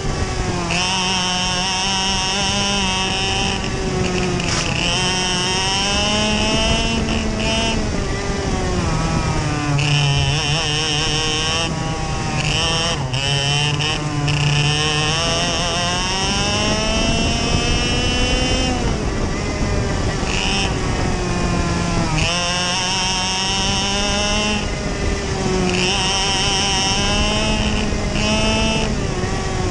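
Onboard sound of a 125cc two-stroke TaG racing kart engine at race pace, its pitch climbing as it accelerates down the straights and falling away as it slows into the corners, over and over.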